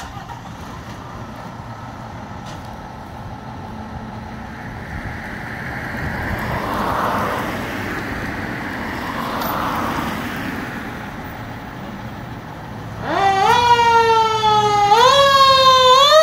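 2009 KME pumper fire engine idling with a low rumble, with two swells of broad noise in the middle. About thirteen seconds in, its siren winds up and then rises and falls about once a second as the engine sets out on a call.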